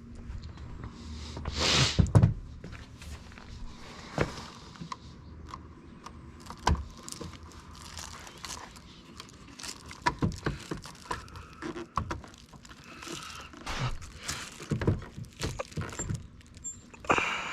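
Handling noise from hand work on car parts and tools: scattered small clicks, light knocks and rustling, with a louder scuffing burst about two seconds in and a run of quick clicks later on.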